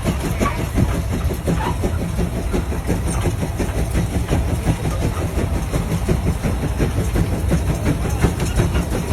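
Tractor engine running steadily, a low rumble with a fast, even beat.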